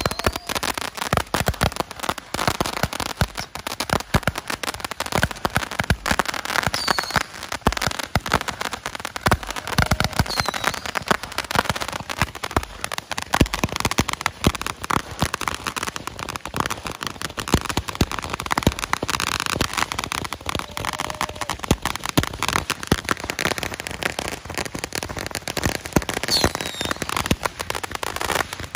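Homemade XL Roman candle gun, a bundle of Roman candles, firing without a break: a dense run of irregular pops and crackling as stars shoot out and burst overhead.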